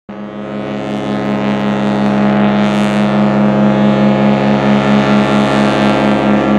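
Cruise ship's horn sounding one long, steady blast that starts abruptly.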